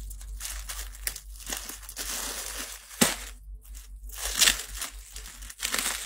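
Plastic packaging crinkling and rustling as new clothes are handled and unpacked, with a sharp tap or knock about three seconds in.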